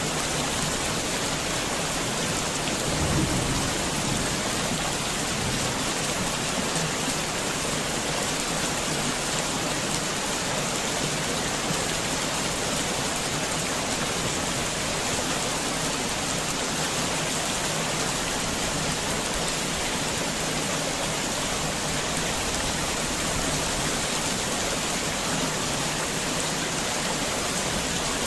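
Heavy rain falling steadily as a dense, even hiss, with a brief low rumble about three seconds in.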